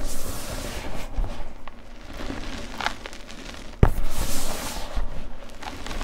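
Gloved hands crushing and squeezing blue gym chalk powder: soft, crunchy, hissing squishes in uneven bursts, with one sharp knock about four seconds in.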